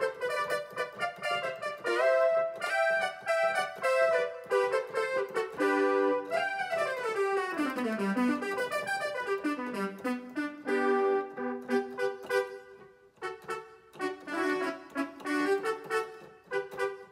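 Roland XP-10 synthesizer keyboard played by hand: a melody of single notes and chords, with a quick falling run of notes about halfway through and a shorter one just after. The playing stops briefly, then picks up again.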